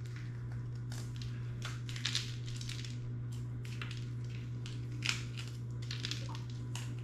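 A kitchen knife cutting food on a cutting board: irregular crisp strokes, roughly two a second, over a steady low hum.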